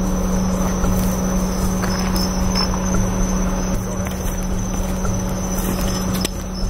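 A vehicle engine idling steadily, a constant low hum, with a thin high insect trill above it and the light rustle of footsteps through tall grass.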